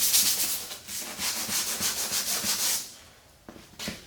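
Rapid back-and-forth scrubbing of a vintage Porsche 911 Recaro seat's upholstery, working saddle soap in. The scrubbing stops briefly about three seconds in, then resumes.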